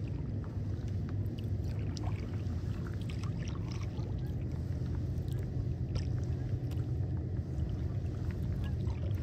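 Scattered, distant calls of a large flock of migrating birds flying overhead in long skeins, over a steady low rumble.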